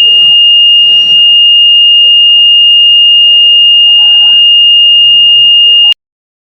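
A battery-powered buzzer in a home-made door alarm sounding one steady, high-pitched tone, which cuts off suddenly near the end.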